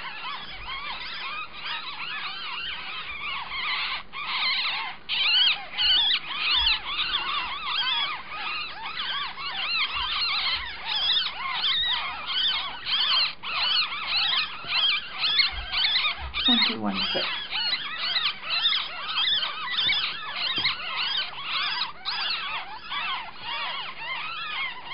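Nine-day-old rat pups squeaking: a dense, continuous stream of overlapping high-pitched squeaks that rise and fall in pitch, with a few soft knocks from handling.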